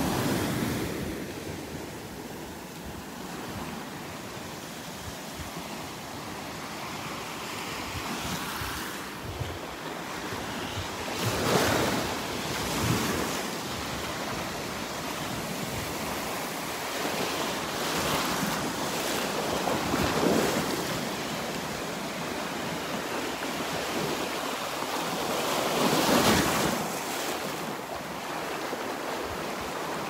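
Small surf breaking and washing up a sandy beach, the rush of water swelling and fading in waves every several seconds.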